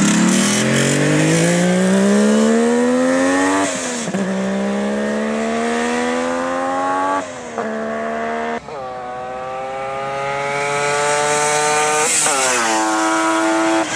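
Kawasaki H2 Mach IV's 750cc two-stroke triple howling under hard acceleration. Its pitch climbs steadily, then drops back several times as it shifts up through the gears.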